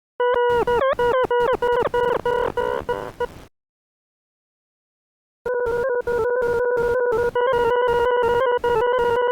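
Electronic tones from the Desmos graphing calculator playing a graph as sound: a choppy pitched tone broken by clicks, with quick dips in pitch, for about three seconds. After a two-second silence, a steady tone at about the same pitch starts again, stuttering several times a second with clicks, and a higher tone joins it about two seconds later.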